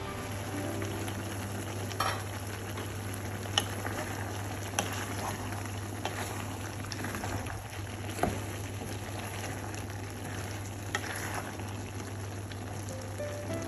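Prawn and courgette curry sizzling in a pot on the hob while a wooden spoon stirs it, with a few sharp knocks of the spoon against the pot. A steady low hum runs underneath.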